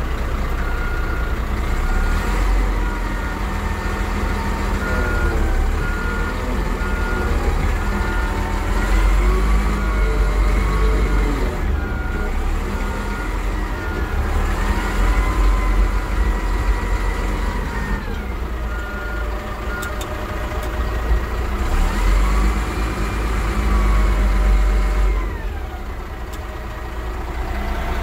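Caterpillar D6R XL bulldozer's diesel engine running under load, its pitch rising and falling as the machine is worked. A backup alarm beeps about twice a second in stretches: for the first several seconds, briefly about halfway through, and again a little later.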